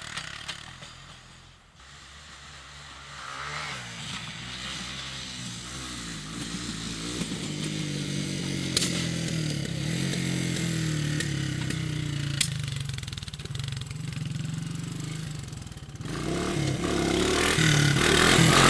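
Honda three-wheeler's small single-cylinder engine running as the trike is ridden, its pitch shifting with the throttle. It fades about two seconds in, builds steadily, then gets much louder near the end as it comes close, with two sharp clicks in between.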